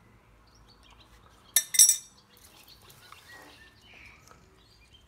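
Metal hand tools clinking against metal twice in quick succession, a sharp clatter about one and a half seconds in, while valve clearance is being set on a pitbike engine head.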